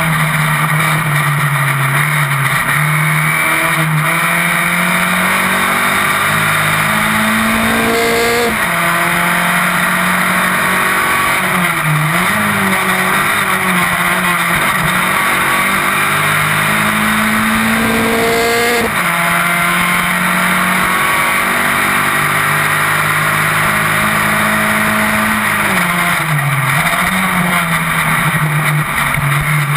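Onboard sound of an open-wheel single-seater racing car at full race speed: the engine revs hard, its pitch climbing and then dropping sharply twice, about eight and nineteen seconds in, and dipping briefly in between. A steady rush of wind and road noise runs underneath.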